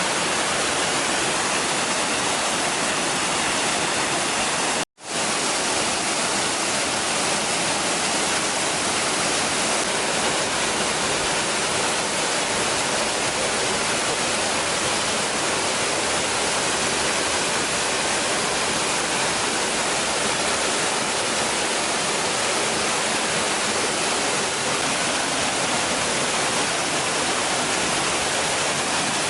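Waterfall pouring: a steady, loud rush of falling water that drops out for an instant about five seconds in.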